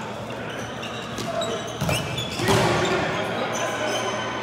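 Sharp knocks echoing in a large hall, two of them close together about two seconds in, over a background of indistinct voices.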